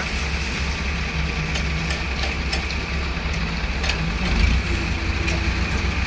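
Engine of a Hydra mobile crane running steadily with a low drone while it holds a concrete bucket, with a few faint clicks over it.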